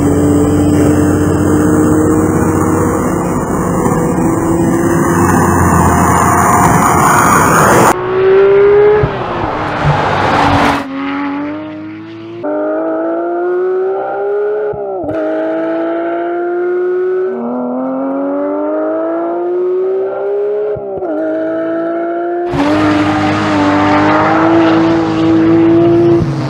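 Porsche 911 GT3's naturally aspirated flat-six engine at high revs. It holds a steady high pitch, then, after about eight seconds, climbs through the gears with several quick upshifts, the pitch rising and dropping sharply at each shift. Near the end it holds high revs again.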